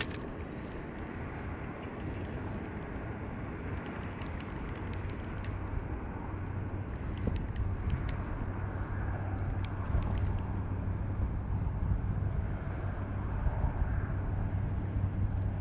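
A steady low rumble that grows a little louder about six seconds in. Scattered faint clicks come between about four and eleven seconds in, from a spinning reel being handled.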